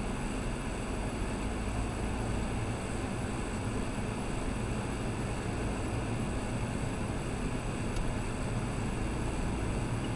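Steady engine and road noise of a car driving slowly in traffic, heard from inside the cabin through a dashcam's microphone.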